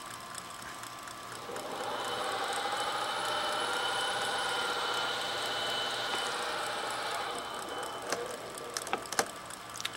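Tape drive of a Panasonic RQ-705 portable reel-to-reel running: the motor and rubber-rimmed idler wheel make a wavering whine that swells for a few seconds and then fades. The owner finds the idler's dried, hardened rubber and weak tension spring letting the drive slip. A few sharp mechanical clicks come near the end.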